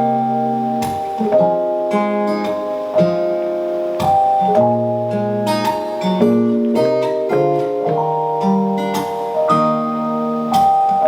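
Instrumental interlude of a slow pop ballad played live: guitar chords strummed about every second and a half over sustained keyboard, with no vocal.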